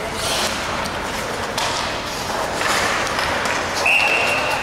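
Ice hockey play on the rink: skates scraping the ice and sticks and puck knocking. A short, steady, high whistle blast sounds near the end.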